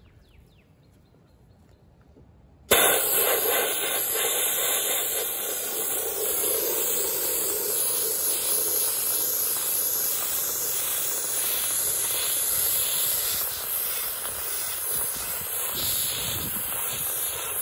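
Hopper-fed Central Pneumatic blast gun switched on about three seconds in, then a loud, steady hiss of compressed air driving baking soda onto a painted cast iron lamp base, stripping the top layer of white paint.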